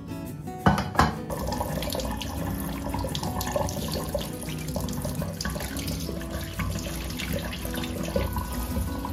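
Kitchen faucet running in spray mode onto hands rinsing raw chicken liver and gizzards over a stainless steel sink, a steady splashing. Two sharp knocks come just under a second in.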